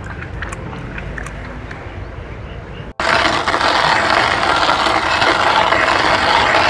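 Coffee grinder grinding whole coffee beans: a few faint clicks, then about three seconds in a loud, steady grinding noise starts and keeps going.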